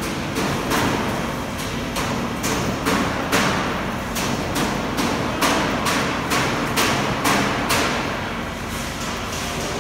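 Iowa Precision coil duct line running: sharp mechanical clacks, about two or three a second, over a steady machine din. The clacking stops about 8 seconds in.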